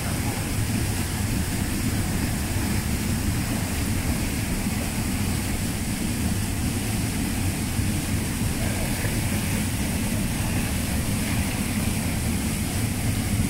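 Steady low roar of a rocky river rushing down a small waterfall into a pool.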